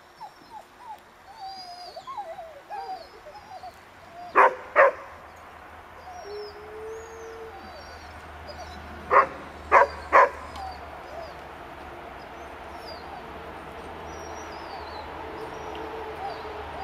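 Sled dogs in a dog yard whining and yipping throughout, with loud sharp barks: two about four seconds in and three more around nine to ten seconds.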